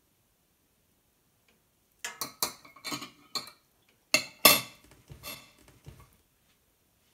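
A metal spoon clinking and knocking against a ceramic dish and slate board as it is set down: a run of sharp clinks about two seconds in, then two louder knocks about four seconds in, with a few lighter taps after.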